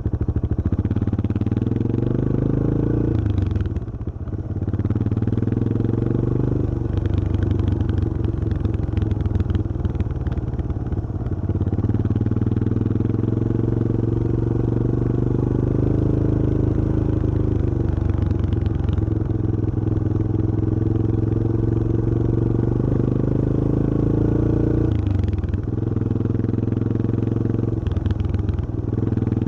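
Yamaha XT225 Serow's air-cooled single-cylinder four-stroke engine running under way. Its pitch climbs and then drops briefly as it shifts up, twice in the first seven seconds, then it cruises at a steady speed, with two more short drops near the end.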